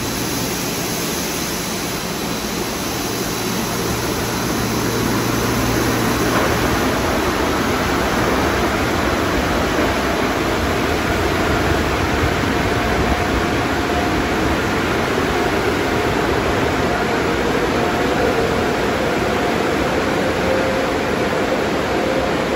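Automatic car wash tunnel at work: water spraying and spinning cloth wrap brushes scrubbing a car, a steady rushing noise that grows louder a few seconds in. A low hum stops about six seconds in, and a faint machine whine comes and goes in the second half.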